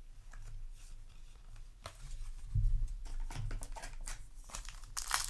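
Faint handling of trading cards: soft clicks and rustles with a few low thumps from hands on the table. A foil booster pack starts to crinkle near the end.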